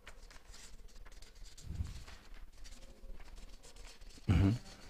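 Faint scratching of a marker writing on a whiteboard, in short strokes, with a brief low murmur near the end.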